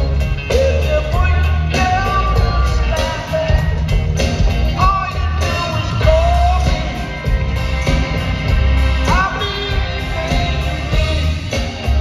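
Live rock band playing with a male lead singer, heavy steady bass and a regular drum beat under the sung lines, heard from the audience in a large arena.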